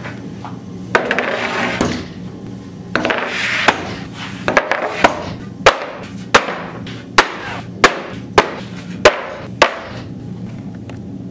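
Walnut plywood panels being laid one on another: board sliding over board, then a run of sharp wooden clacks, about one every two-thirds of a second, as each panel drops onto the stack.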